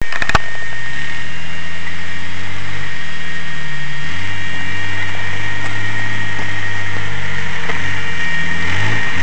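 Off-road 4x4's engine running as it crawls through mud, its pitch stepping up and down as the throttle is worked.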